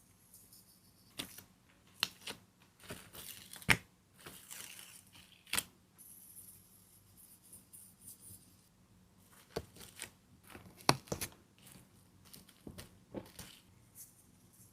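Sand being scraped and pushed by hand across a flat surface: irregular crisp clicks and short crunchy scrapes, a few sharper ticks among them.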